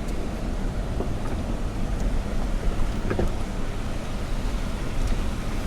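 Toyota Tacoma pickup driving slowly down a rough dirt trail: a steady low rumble with a few light knocks.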